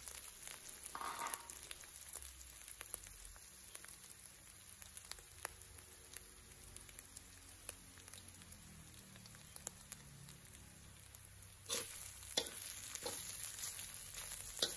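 Pounded shallot and garlic frying in a little oil in a wok, with a faint steady sizzle. A metal spatula scrapes and knocks against the wok a few times near the end as the paste is stirred toward golden and fragrant.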